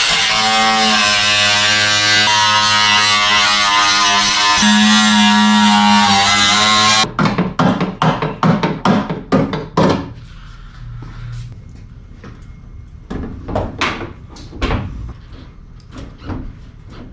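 A handheld power tool running steadily as it cuts out the sheet-metal inner skin of the hood, its buzz shifting slightly in pitch under load, then stopping suddenly about seven seconds in. A quick run of sharp knocks and taps follows, then lighter scattered clicks.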